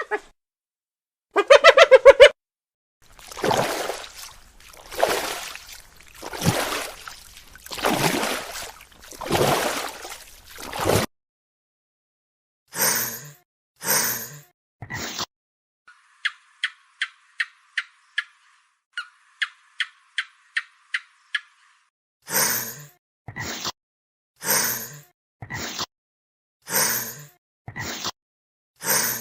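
A string of different animal sounds: a short pitched call, then a run of loud breathy puffs, then a quick train of high chirps at about five a second, then more short breathy bursts.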